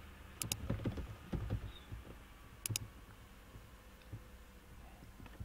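Computer keyboard keystrokes and mouse clicks: a short run of soft key taps in the first couple of seconds, and a quick pair of sharp clicks about half a second in and again near three seconds.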